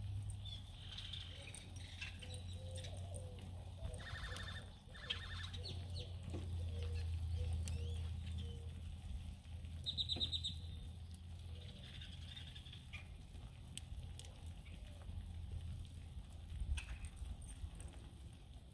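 Birds chirping and calling in scattered short bursts, including a quick trill about four seconds in, over a steady low rumble.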